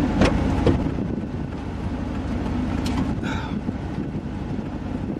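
Steady low rumble of a vehicle, with a few light clicks and a short high chirp a little past three seconds in.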